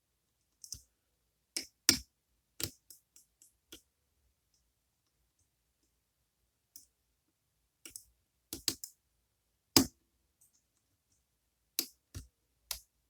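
Irregular sharp metallic clicks of a lock pick and tension tool working the pins inside a Goal Z pin-tumbler lock with spool pins, about a dozen clicks with pauses between.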